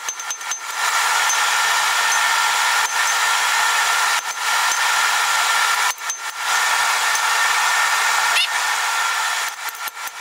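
Rapid hammer blows on a hand punch driving through red-hot mild steel on an anvil, sped up, in the first second and again near the end. Between them a loud steady rushing noise takes over, with two short breaks.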